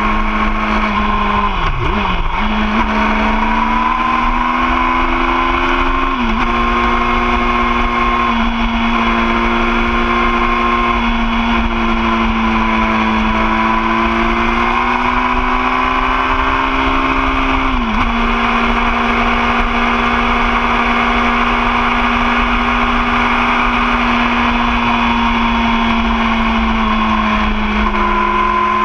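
2013 Yamaha R6's inline-four engine running at speed with wind rush. Its note falls sharply about two seconds in, again near six seconds and again near eighteen seconds, and climbs slowly in between.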